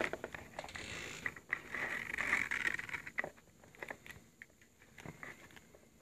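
Metal YKK zip on a Red Wing leather long wallet being pulled open by hand: a rasping run of tiny clicks for about three seconds, loudest in its second half, then a few scattered light clicks.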